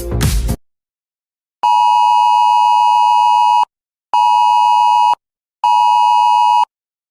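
Emergency alert tone: an electronic beep at one steady pitch, first a two-second beep, then two one-second beeps, then a long steady tone that starts right at the end. Electronic music cuts off just before the beeps.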